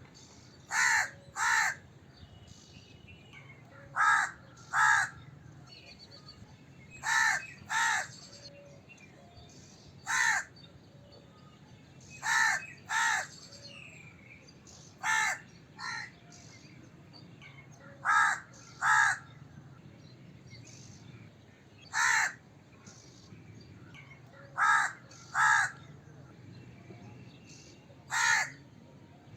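A crow cawing: short caws, mostly in pairs less than a second apart with a few single caws, repeating about every three seconds.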